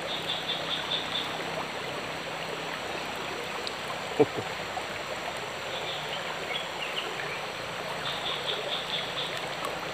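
Small forest stream trickling steadily. Runs of short high chirps come near the start, around six seconds and again from about eight seconds, with one brief sharp sound about four seconds in.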